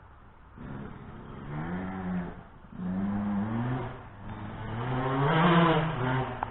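Yamaha YZ125's single-cylinder two-stroke engine revving up through the gears three times in a row, its pitch climbing on each pull with a short drop between, getting louder and loudest near the end as the bike comes closest.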